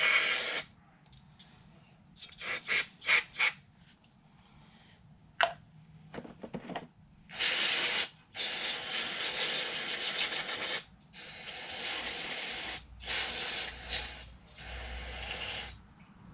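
Aerosol cleaner sprayed into a dirty carburetor float bowl in a short burst, then a run of longer hissing bursts, the longest about two and a half seconds, with a few clicks of handling the parts between them.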